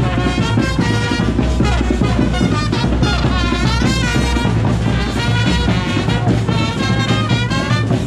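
Brass band with a bass drum playing upbeat Palo de Mayo dance music, the trumpet and trombone lines over a steady pounding beat.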